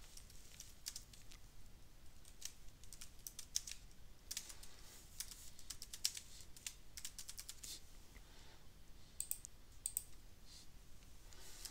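Faint typing on a computer keyboard: irregular runs of quick key clicks, thickest about halfway through, with scattered single clicks.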